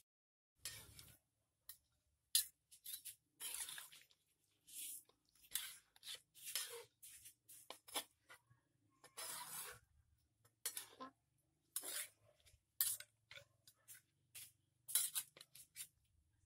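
Metal spoon scraping and knocking against a blackened wok as a thick chicken curry is stirred, in short irregular scrapes.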